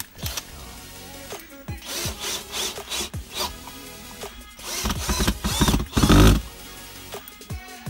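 Electronic background music over scraping and handling noise from tool work, with a loud noisy stretch about five to six seconds in.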